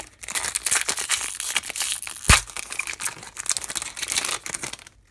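Foil wrapper of a 2015-16 O-Pee-Chee Platinum hockey card pack being torn open and crinkled by hand: a dense crackle of foil, with one sharp louder crack about halfway through.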